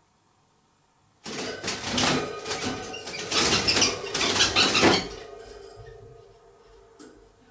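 Budgerigars in a night fright: a sudden burst of frantic wing-flapping and clattering against the wire cage, starting about a second in and lasting about four seconds, then dying away.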